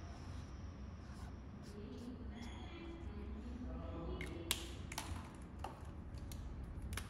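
A few light, sharp clicks and taps, spaced out over the latter half, over a low steady hum.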